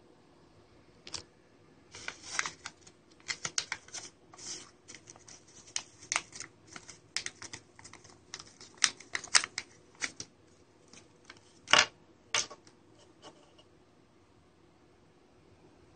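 Pink plastic zip-lock bag crinkling and crackling in irregular bursts as it is handled and opened, with the loudest crackles near the end and then stopping about three quarters of the way through.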